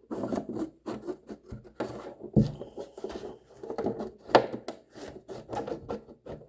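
Scissors cutting through a plastic water jug: a busy run of irregular snips and scraping rubs of the blades on the plastic, with a couple of louder snaps and knocks.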